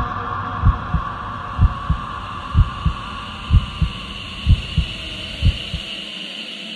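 Heartbeat sound effect: paired low thumps, lub-dub, about once a second over a steady hum, stopping about six seconds in.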